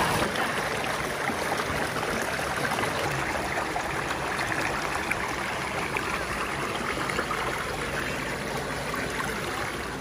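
Valley stream flowing over rocks: a steady rushing of water.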